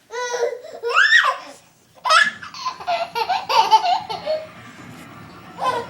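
An 8-month-old baby laughing: a rising, high-pitched squeal in the first second and a half, then a run of choppy giggles, and one short laugh near the end.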